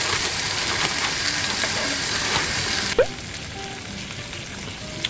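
Pork belly slices sizzling in a round grill pan, a steady frying hiss. About three seconds in it drops suddenly to a quieter sizzle, with a click at the change.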